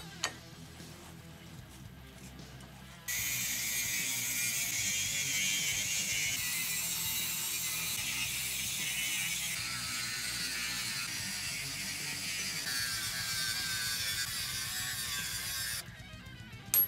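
Angle grinder cutting into a steel blade held in a vise, a loud, steady grinding hiss that starts abruptly about three seconds in and stops shortly before the end, over quiet background music.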